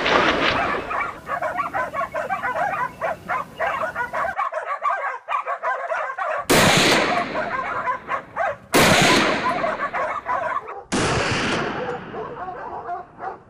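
A pack of hunting hounds baying and yelping, then three gunshots about two seconds apart, each rolling away in a long echo.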